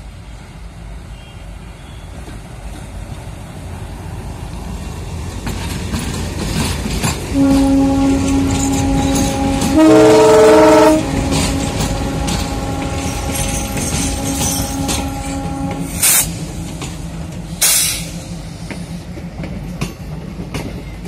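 Twin WDG-3A diesel locomotives, ALCO 251 sixteen-cylinder engines, hauling a passenger train past, their rumble growing steadily louder as they approach. About seven seconds in, the locomotive horn sounds one long steady blast of about eight seconds, louder and changing pitch for a second in the middle. Near the end, as the coaches roll by, two short sharp noises cut through.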